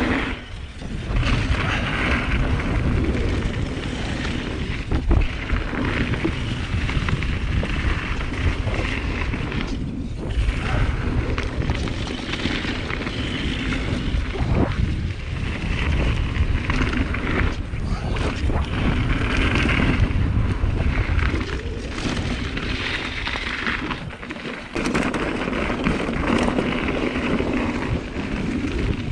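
Mountain bike descending a dirt singletrack: steady rumbling wind buffeting the camera microphone over tyre noise on the dirt, with frequent short knocks and rattles from the bike over bumps.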